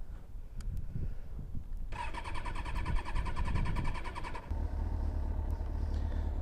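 Kawasaki ZX-6R inline-four being cranked on its electric starter for about two and a half seconds without catching, with the bike refusing to start. A steady low hum follows.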